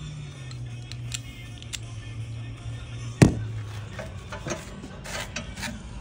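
Background music with a steady low tone, over light metal clinks of hand tools as a Torx bit socket and ratchet are handled and fitted; one sharp metallic click about three seconds in is the loudest sound.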